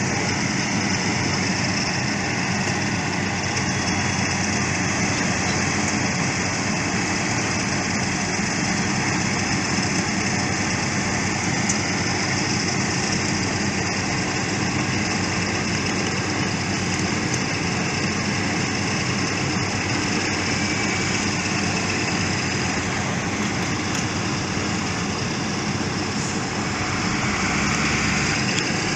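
Engines of road construction machinery running steadily at an even pitch and level.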